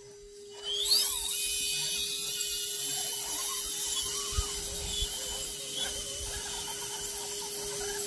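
Electric motors and geared drivetrains of RC scale crawler trucks whining as they climb through snow; the whine rises in pitch about a second in and then holds steady, with a couple of small knocks partway through.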